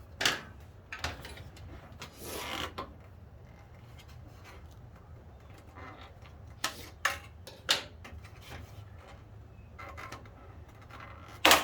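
Plastic seat trim being pried and unsnapped by hand: a handful of sharp clicks and snaps, the loudest near the end, with a scraping rub about two seconds in, over a low steady hum.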